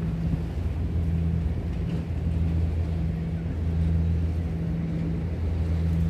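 A steady low engine drone, one even hum with an overtone, over a faint wash of wind and water noise.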